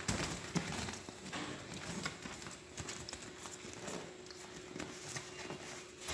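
A baby monkey scrambling along the edge of an inflatable vinyl paddling pool: irregular soft taps, thumps and rubbing of its hands and feet on the plastic.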